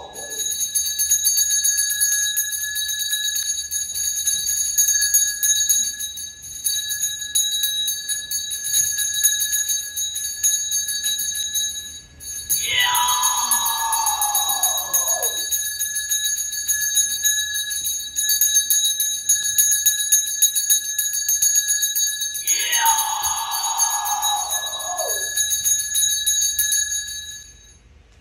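Small brass Taoist ritual hand bell shaken without pause in a fast, steady jingle, stopping just before the end. Twice, about halfway through and again near the end, a long call slides from high to low over it.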